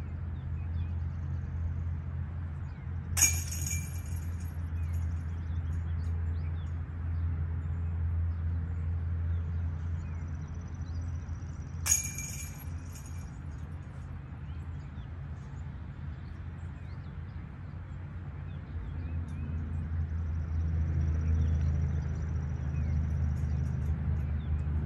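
Two putted discs striking the galvanized chains of a Dynamic Discs disc golf basket, about nine seconds apart. Each is a sharp clank followed by about a second of jingling chains. A steady low rumble runs underneath.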